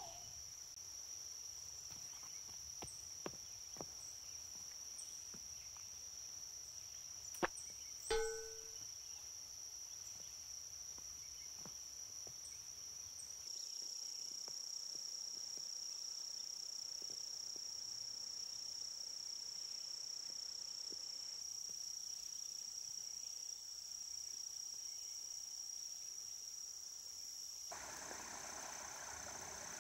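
A steady high-pitched insect chorus drones on, faintly. About seven seconds in there is a sharp click, then a brief chirp. Near the end the soft rush of trickling creek water joins in.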